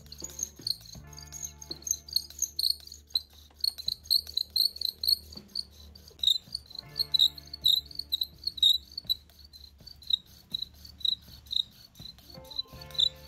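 Bow drill squeaking rhythmically as the spindle is sawn back and forth, driven by thin monofilament fishing line multi-wrapped around it; a sharp high squeak comes on every stroke, several a second.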